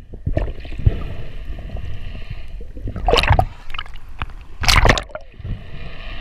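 Water sloshing and gurgling, with two short, louder splashy bursts about three seconds and nearly five seconds in.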